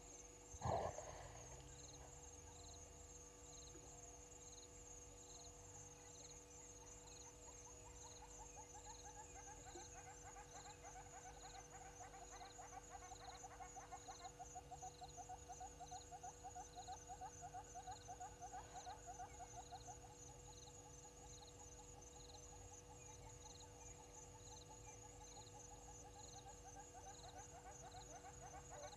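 A single sharp thump just under a second in. From about seven seconds in, an animal gives a long, fast trill of evenly pulsed notes that runs on and swells in the middle, over steady high insect chirping and buzzing.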